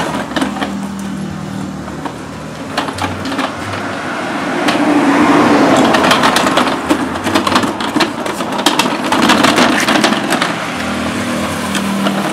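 Small plastic caster wheels of a loaded flat metal pushcart rolling over gritty packed dirt, a continuous rattling, grinding rumble with many small clicks. It gets louder in the middle as the cart is pushed along.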